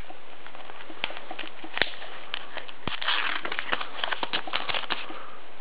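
Sticker booster packet being torn open and crinkled by hand: a run of crackles and small clicks, busiest in the second half.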